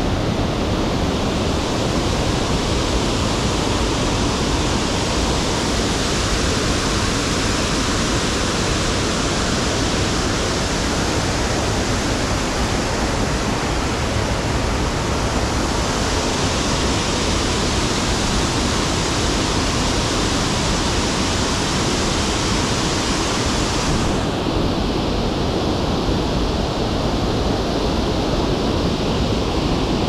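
Waterfall pouring steadily, a loud, even rush of falling water. About three quarters of the way through, the higher hiss suddenly drops away and the sound becomes duller.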